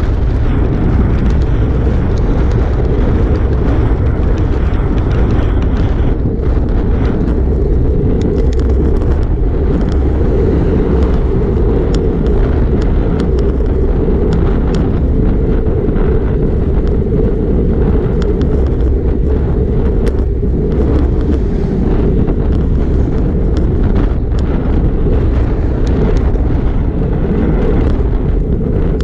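Wind rushing over the microphone of a GoPro mounted on a road bike's handlebars while riding at speed, a loud steady rumble mixed with tyre and road noise. Occasional light clicks and rattles from the bike over the road surface.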